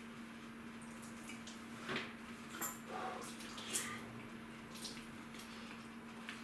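Wet mop being worked in a plastic mop bucket: water sloshing and dripping, with a few knocks and clatters about two to four seconds in.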